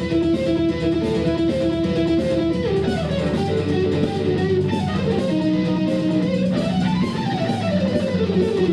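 Electric guitar playing a melodic lead line of held notes, with a slide up in pitch and back down near the end, over a steady low accompaniment.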